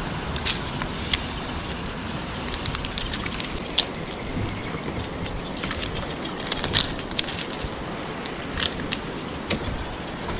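Scattered sharp clicks and light rattles of small fishing gear being handled: rummaging in a zippered backpack and taking out a packet of fish hooks, with a quick run of clicks a few seconds in. Underneath, a steady hiss of wind and sea.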